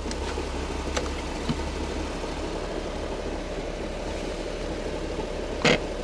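A car's engine idling steadily. There are light clicks about a second in, and a sharper click near the end, as the fuel filler flap is opened and pushed shut.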